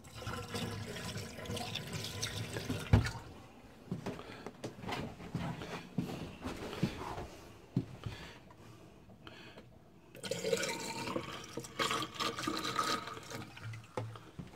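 Pink non-toxic RV antifreeze poured into a sink drain, splashing and running down to fill the drain trap, in two spells. There is a single sharp knock about three seconds in.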